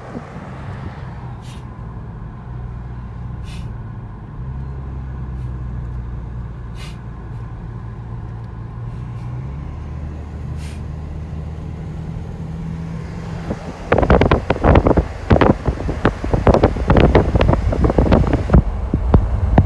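Low engine and road hum of a car climbing a mountain road, heard from inside the cabin, its pitch stepping a few times, with a few faint clicks. About two-thirds of the way through it gives way to louder wind buffeting the microphone in uneven gusts.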